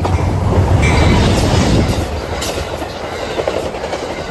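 Train passing close by at speed: a loud steady rumble of wheels on rails with sharp clicks, loudest in the first couple of seconds and then easing off.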